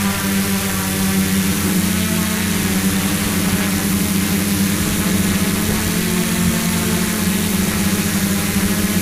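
Hexacopter's six electric motors and propellers buzzing steadily in flight, heard close from the onboard camera as a loud, even hum with a slight waver in pitch.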